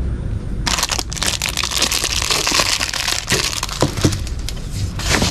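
Plastic packaging crinkling and rustling as it is handled, with many small crackles and clicks, starting about a second in.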